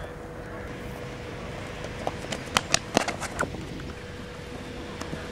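Quick run of footsteps: about half a dozen sharp footfalls in a second and a half, starting about two seconds in, as a person runs up and goes down onto the grass.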